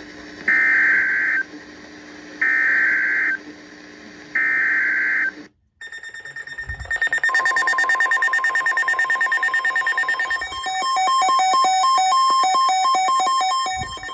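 Emergency Alert System SAME header on NOAA Weather Radio: three roughly one-second bursts of buzzy digital data tones, about two seconds apart, marking the start of a severe thunderstorm warning. After a brief drop-out comes a long alert tone with a rapidly pulsing electronic beep over it.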